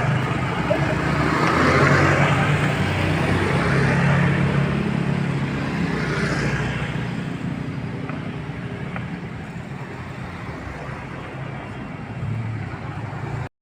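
Road traffic passing: engines of cars and motorbikes with a steady low hum, swelling twice as vehicles go by and then slowly fading, before the sound cuts off suddenly near the end.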